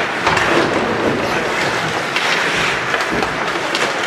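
Ice hockey play in a rink: a steady scraping hiss of skates on ice, broken by several sharp knocks of sticks and puck, with some players' shouts.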